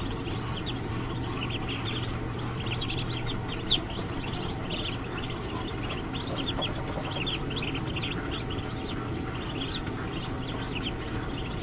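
Newly hatched ducklings peeping: many short, high chirps overlapping without pause. A steady low hum runs underneath, and there is one brief knock about four seconds in.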